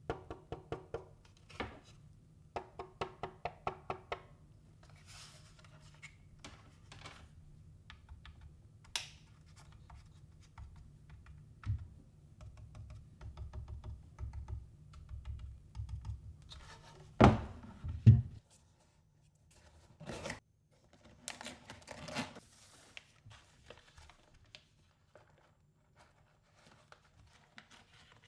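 Handling noises from a keyboard kit and its packaging: a quick run of clicks, scrapes and rustles, then two loud knocks about two-thirds of the way through. A low hum runs underneath and cuts off just after the knocks.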